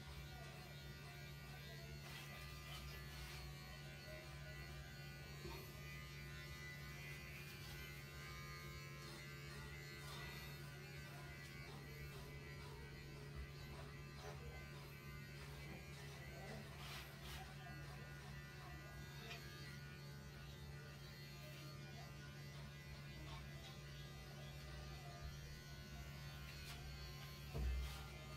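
Electric hair clipper buzzing steadily while clipping a cat's coat short, with one thump near the end.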